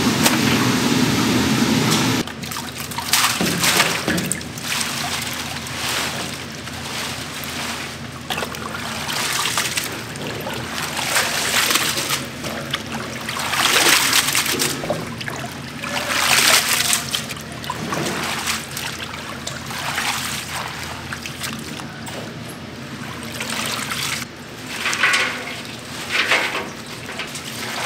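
Water splashing and trickling in irregular surges. It follows a louder steady rushing noise that cuts off abruptly about two seconds in.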